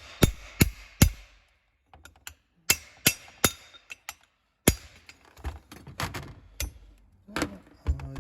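Hammer striking a chisel, metal on metal, against stuck bolts on a turbocharger: a series of sharp strikes with a short ring, some coming in quick groups of three.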